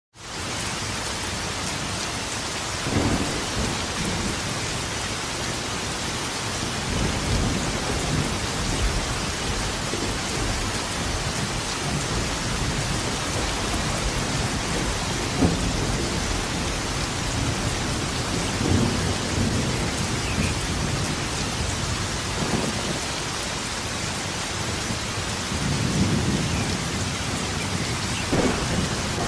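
Steady heavy rain with rolls of thunder rumbling every few seconds, and a sharper thunderclap near the end.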